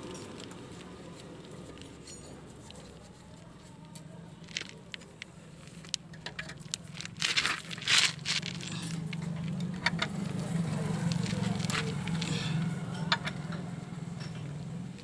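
Metal clicks and scrapes of a spanner and hand unscrewing the engine sump drain plug on a JCB backhoe loader, with a louder clatter about eight seconds in.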